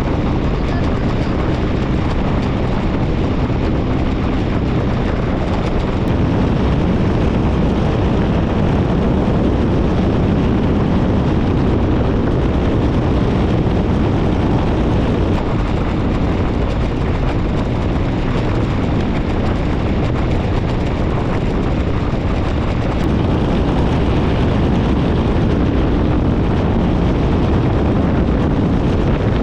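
Paramotor engine and propeller running steadily in flight, a loud even drone.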